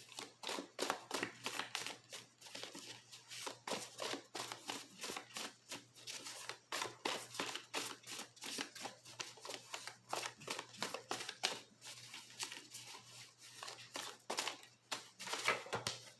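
Tarot cards being shuffled and handled: a fast, uneven stream of papery clicks and rustles as the cards slide and snap against each other.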